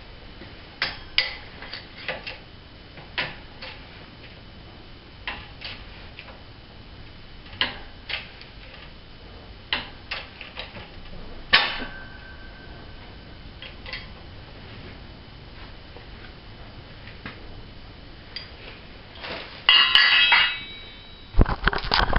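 Scattered metal clinks and clanks of steel parts and tools being handled at a hydraulic shop press, one clank about halfway through ringing on briefly. A burst of dense clatter comes near the end, followed by loud handling bumps.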